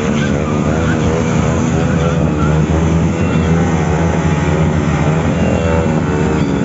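Motorcycle engine revving hard with its pitch rising and falling over and over as the rear tyre spins against the pavement in a burnout.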